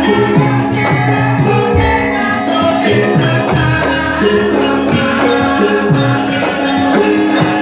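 Lively music with sustained pitched notes and a busy run of quick percussion strokes.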